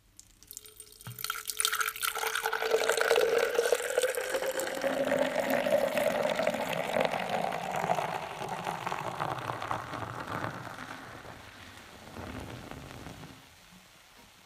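Beer poured from a bottle into a stemmed glass, the pitch of the pour rising steadily as the glass fills. It thins out and tapers to a trickle near the end.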